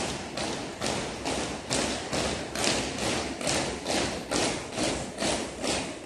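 Drill boots of a squad of cadets stamping in unison on a hard parade ground, a steady beat of a little over two strikes a second.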